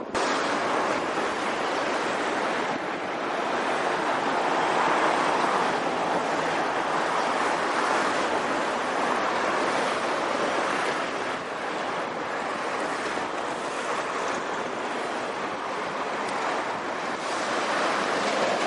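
Steady rushing noise of street traffic with wind on the microphone, without a clear engine note.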